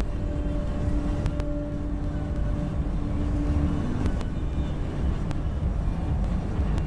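Road noise of a car driving at highway speed, heard inside the cabin: a steady low rumble of tyres and engine, with a held hum that drops a little in pitch about four seconds in.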